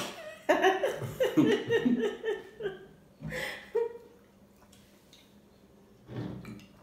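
A person laughing in quick pulses for about two seconds, then two short burps, the second one low.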